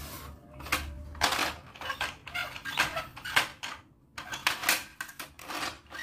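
Plastic toy construction vehicle being handled and moved, giving irregular clicks, clacks and short rattles of plastic parts knocking together.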